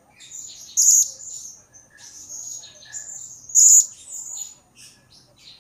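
Blue-crowned hanging parrot (serindit) twittering in rapid, high-pitched chirps, with two louder, shrill calls standing out: one about a second in and another about three seconds later.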